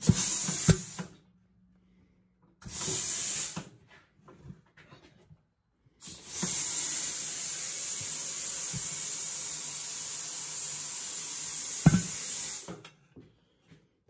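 Hunter TC150 tire changer hissing with compressed air in bursts while mounting a tire: two short hisses, then one long steady hiss of about six seconds. A low hum runs under the hisses, and there are a couple of sharp metal clanks, the loudest near the end of the long hiss.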